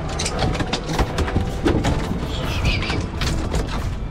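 A boat's motor and wind rumble steadily, with irregular knocks and clatter on the deck as line and catch are handled.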